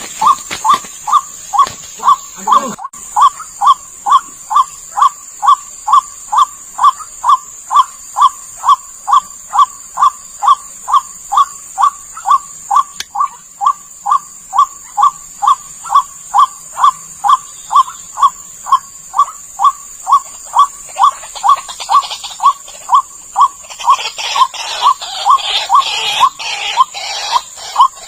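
White-breasted waterhen (ruak-ruak) call played as a bird lure: one short note repeated with machine-like evenness, about twice a second, over a steady high hiss. A rougher, noisier sound joins in briefly near the end.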